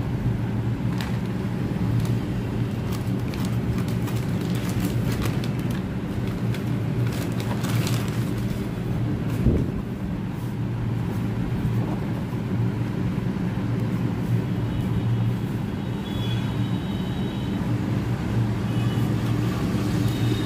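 A plastic courier mailer and a taped cardboard box being handled and opened: crinkling and scattered clicks in the first half, a single thump about halfway through, over a steady low hum.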